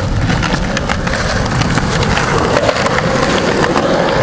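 Skateboard wheels rolling over a concrete sidewalk: a steady, loud rumble with scattered clicks as the wheels pass over cracks and grit.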